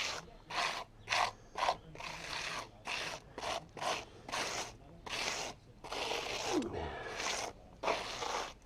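Hand tool scraping over the concrete driveway surface in repeated back-and-forth strokes, about two a second.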